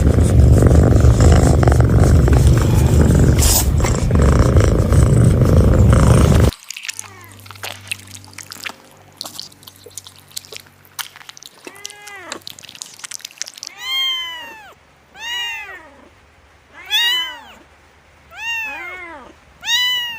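A loud, steady noise that cuts off suddenly about six seconds in, then faint clicks and a cat meowing: six meows, each rising then falling in pitch, about one and a half seconds apart, getting louder toward the end.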